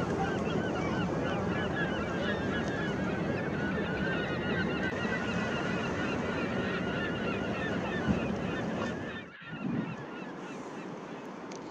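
A large flock of birds calling all at once, a dense chatter of short squawks over a steady rushing background. The calling stops abruptly about nine seconds in, leaving a quieter ambience.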